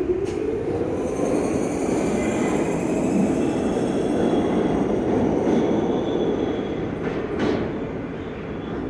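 New York City IRT subway train pulling out of the station. Its motors whine, rising in pitch during the first second as it accelerates, then comes a steady rumble of wheels on rail with faint wheel squeal and a single clack near the end, easing off as the train leaves.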